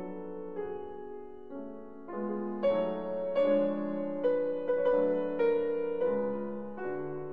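Instrumental background music: a slow run of sustained pitched notes, changing about every half second and growing louder about two and a half seconds in.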